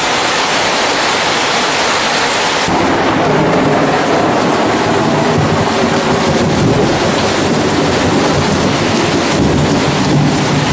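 Loud, steady rushing noise that swells up at the start and takes on a deeper rumble about three seconds in.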